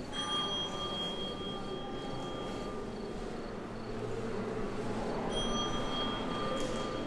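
A small metal chime rings twice, about five seconds apart, each time a high, clear tone that hangs for a second or two, over a faint, regular high ticking.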